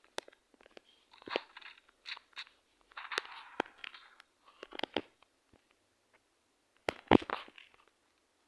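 Irregular crunching and clicking sounds, a string of sharp clicks and short crunches with a louder crunch near the end.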